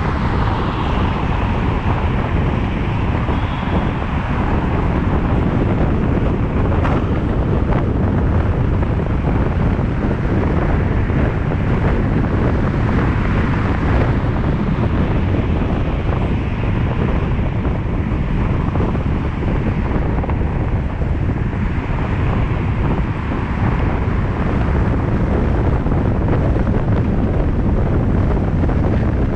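Steady rumble and road noise of a car driving along a city road, with wind buffeting the microphone.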